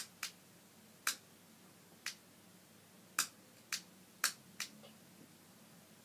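A wall light switch flicked off and on repeatedly, making about eight sharp clicks at uneven spacing over four and a half seconds.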